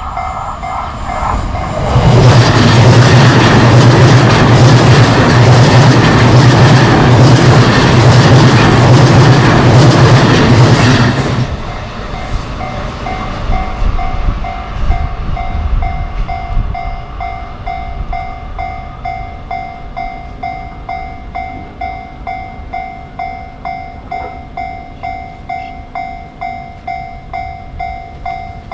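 Japanese railway level-crossing alarm bell dinging in a steady rhythm. About two seconds in, a JR Chuo Line train passes over the crossing, loud for about nine seconds with a low rumble and rail noise. The train noise then dies away over a few seconds while the bell keeps ringing.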